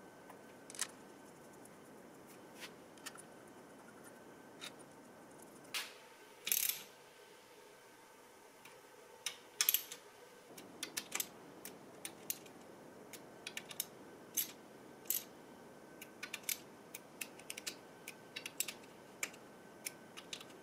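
Scattered metal clicks and taps of hand tools, bolts and parts as reed blocks and rubber intake manifolds are bolted to a two-stroke motorcycle cylinder. In the second half come quick runs of small clicks from a socket tightening the manifold bolts.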